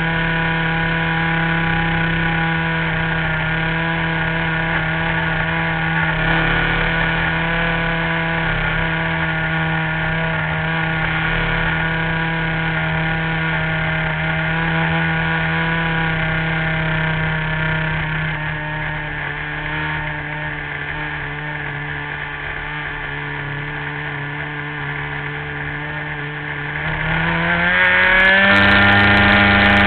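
RC model airplane's engine running steadily in flight, heard close from the airframe. It drops slightly in pitch and loudness past the middle, then about two seconds before the end the pitch and loudness climb quickly as the throttle opens up.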